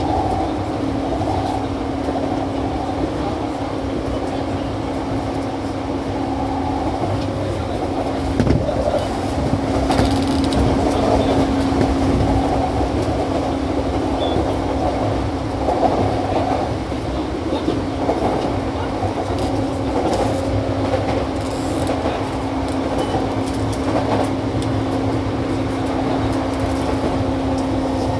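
Interior running noise of a JR E235 series 1000 electric commuter train running steadily: a continuous rumble of wheels on rail under a steady, even-pitched hum, with a few short knocks from the track, the strongest about eight seconds in.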